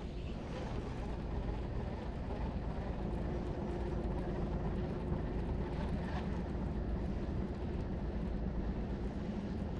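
Steady low motor drone with a faint steady hum, unchanging and without sudden sounds.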